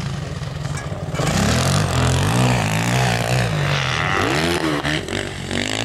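Motocross dirt bike engine revving hard as it rides the track. It grows louder about a second in, and its pitch rises and falls repeatedly with the throttle.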